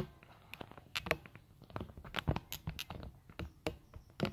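Irregular light clicks and taps, about a dozen scattered sharp strokes, like hard objects being handled.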